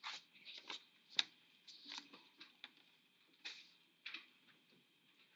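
Faint rustling and brushing of paper sheets being moved and swapped on a desk: a string of short scrapes with a sharp tap about a second in.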